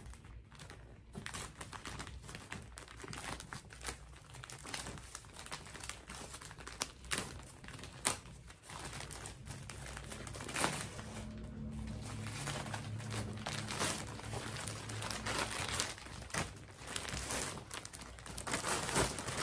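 Grey plastic poly mailer bag crinkling and rustling with irregular crackles as it is picked at and pulled open by hand.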